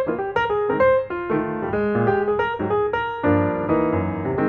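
Background piano music: a quick, continuous run of notes and chords.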